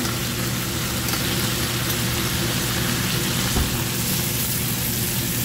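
Shrimp, onion and green pepper sizzling steadily in a hot wok over a gas burner, with a steady low hum underneath.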